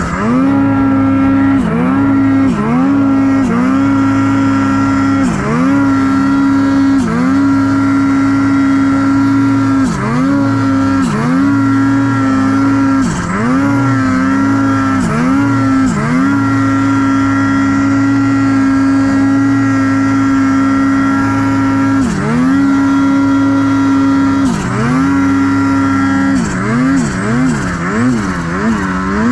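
Ski-Doo Gen 5 Turbo R snowmobile's turbocharged two-stroke engine running hard at high revs. The revs dip briefly and climb back every second or two as the throttle is eased and reapplied, hold steady for several seconds in the middle, then swing quickly up and down several times near the end.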